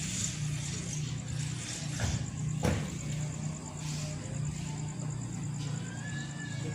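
Steady low engine rumble, with a faint, rapidly pulsing high chirp above it and a single sharp knock about two and a half seconds in.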